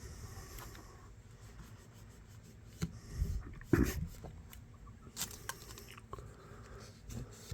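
Cloth-and-rubbing-compound hand polishing on a pocket knife's metal bolsters: soft, scratchy rubbing with small clicks of handling. A few louder knocks come around three to four seconds in.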